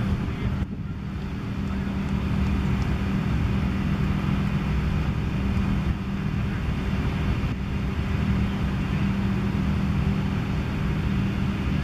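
Steady low mechanical hum, like an engine running, over a continuous rumble.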